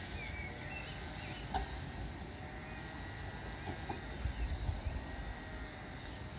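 Renfe regional passenger train rolling slowly away toward its station stop, heard from a distance as a faint steady hum over a low rumble. One short click about a second and a half in.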